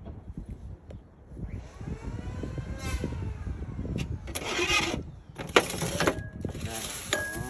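A motor vehicle's engine rising and then falling in pitch, followed by two short loud bursts of noise.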